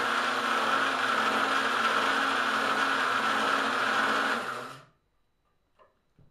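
Electric drill spinning an engine cylinder hone inside a cast-iron pitcher pump's bore, running steadily as the stones smooth the coarse-machined bore so the piston will seal better. The drill winds down and stops about five seconds in.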